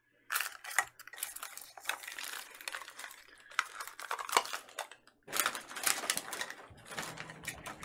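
Plastic packaging crinkling and rustling as it is handled, with many sharp clicks. It stops briefly about five seconds in, then resumes.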